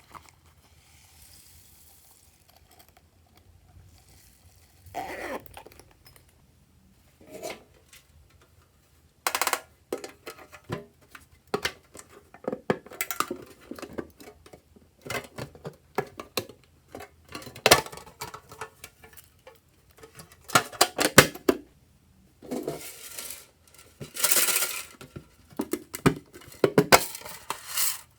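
Slime being mixed and squished: irregular sticky pops, clicks and crackles in bursts with short pauses, sparse at first and coming thicker and louder from about nine seconds in.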